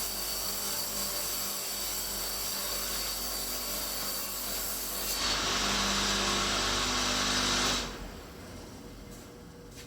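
Homemade profile-tube cleaning machine with angle-grinder brushes running and scrubbing rust off square steel tube. The noise is steady, grows louder about five seconds in, then drops sharply to a much quieter level near the end.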